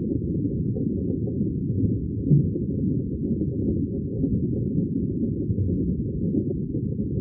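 Steady, muffled low rumble of water, with no high sounds in it and a brief swell a couple of seconds in.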